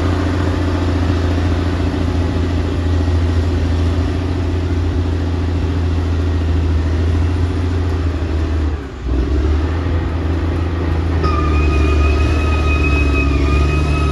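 Caterpillar D6R XL bulldozer's diesel engine running steadily while working, with a brief dip a little past halfway. Near the end a steady high-pitched whine joins the engine sound.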